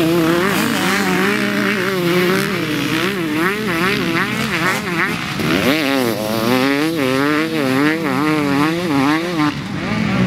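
KTM SX two-stroke motocross bike engine revving hard as it is ridden, its pitch climbing and dropping over and over, about twice a second.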